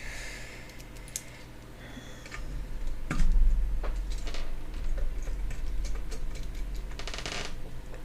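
Small clicks and taps of a screwdriver and its bits being handled while a bit is swapped for a larger one, with handling bumps against the desk and a quick run of clicks about seven seconds in.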